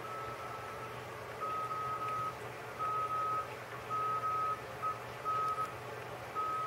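Morse code (CW) signal on the 40 m amateur band heard through a shortwave transceiver's speaker: a steady mid-pitched tone keyed on and off in long and short elements over a low hiss of band noise. It is being picked up by a homebrew magnetic loop antenna that is not tuned to 40 m but still receives the signal clearly.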